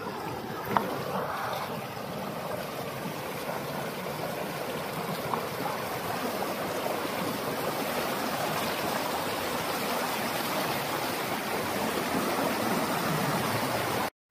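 Muddy flash-flood torrent rushing over rocks and stones in a rocky streambed: a steady rushing of water that grows slightly louder, with one sharp click about a second in.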